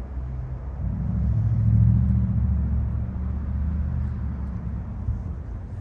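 A low rumble that swells about a second in and then eases off.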